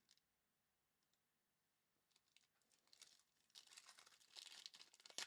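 Faint crinkling and tearing of trading-card pack wrappers being opened and handled, starting about two seconds in after a near-silent start.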